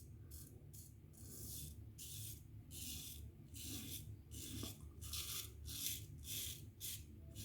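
GEM Featherweight single-edge safety razor scraping stubble through shaving lather, in short strokes about two to three a second.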